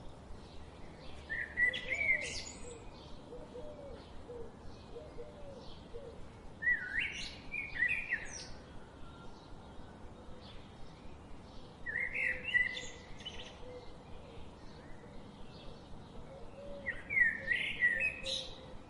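Songbirds: one bird sings a short warbled phrase four times, about every five seconds, over a steady run of faint, quick chirps from other birds.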